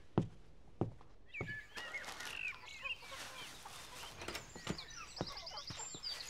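Birds chirping, with several soft thuds scattered through; about five seconds in comes a quick run of high, repeated chirps.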